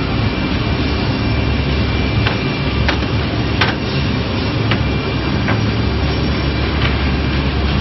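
Brush sanding machine running steadily with a low hum and a steady high whine, with a few sharp clicks scattered through.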